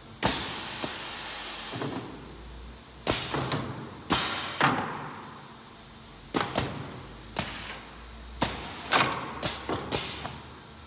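Pneumatic actuators of an URBAN AKS 6110 PVC window-frame welding machine firing in a quick string of strokes, each a sharp clack followed by a hiss of exhausting air, as the heads and clamps close on the frame. The first stroke hisses for nearly two seconds; the rest come in short, uneven bursts.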